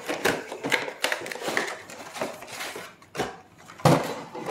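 Clear rigid plastic packaging tray from a trading-card collection box being handled, crackling and clicking repeatedly, then set down on a table with a loud knock near the end.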